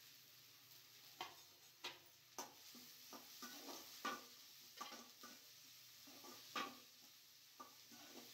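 A utensil knocking and scraping against a cooking pan in irregular strokes, about ten in all, over a faint sizzle of frying.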